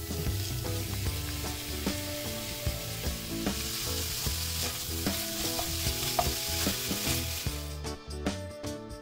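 Minced beef sizzling in a hot frying pan as it is stirred and spread with a spatula. The sizzle grows louder a few seconds in and stops abruptly near the end, with light scrapes and knocks of the spatula on the pan.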